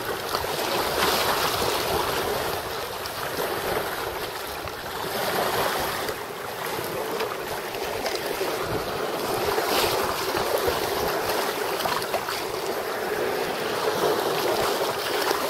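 Steady wind blowing across the microphone, with choppy lake waves washing against a rocky shore.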